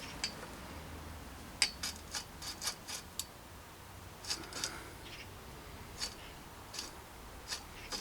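Light metallic clicks and taps of hand tools and bicycle parts being handled, in irregular groups: a quick run of about eight clicks early on, a few more in the middle, and single ticks near the end.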